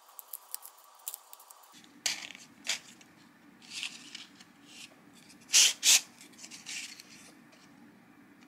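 Stiff paper card parts handled and fitted together: a few light clicks, then short scraping, rubbing rustles of card on card, the loudest two close together about five and a half seconds in.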